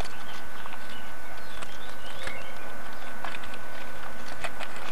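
Steady hiss with a faint constant high tone, and scattered faint chirps and small clicks over it.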